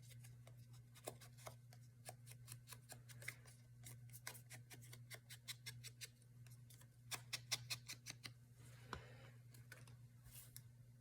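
Faint, quick snips of scissors cutting paper, in irregular clicks several times a second, over a steady low hum.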